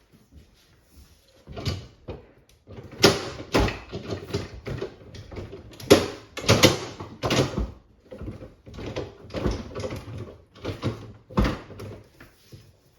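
Irregular knocking, clattering and scraping of containers, drawers and frozen items being handled and pulled out of an iced-up refrigerator freezer.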